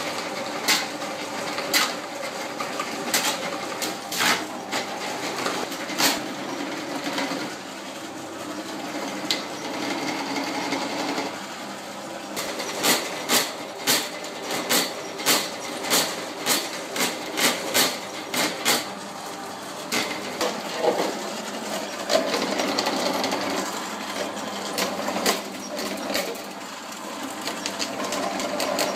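Electric drain-cleaning machine running with its cable turning inside a blocked toilet's floor drain pipe. Sharp clicks and knocks come throughout, with a run of them at about two a second in the middle.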